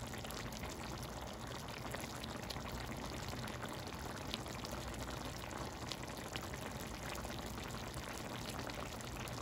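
Chicken cacciatore in tomato sauce simmering in a pan: a steady bubbling with many small scattered pops.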